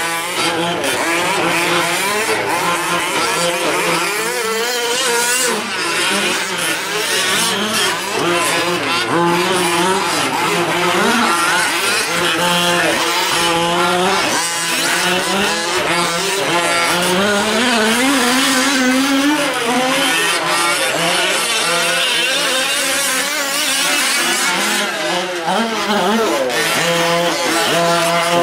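Several 1/5-scale gas RC trucks' small two-stroke engines buzzing at once, each revving up and down as they race, their pitches overlapping and crossing.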